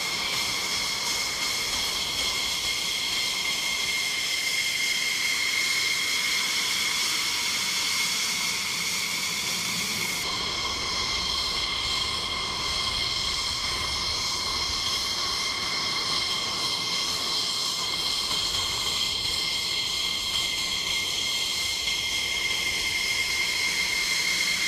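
F-16 fighter jet engines idling while the jets taxi: a steady high-pitched whine over a constant rushing noise. The hiss loses some of its brightness about ten seconds in.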